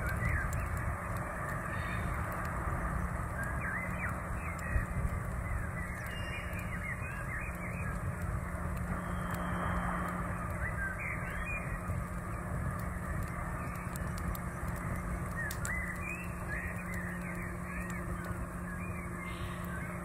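Shallow rocky stream rushing steadily over stones, with birds calling in many short chirps throughout.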